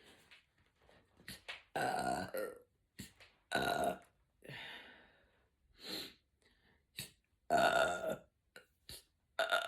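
A woman burping repeatedly: about six belches of varying length, the loudest about two seconds in and again around eight seconds, with a few short clicks between them. They are brought up by carbonated raspberry-flavoured sparkling water.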